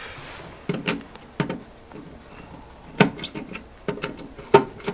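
Scattered sharp clicks and knocks of hands handling a wire and a plastic time switch's screw terminals. The loudest clicks come about three seconds in and near the end.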